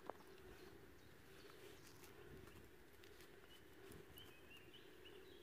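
Near silence: faint outdoor background with a soft click just after the start and a few faint high bird chirps in the last second or so.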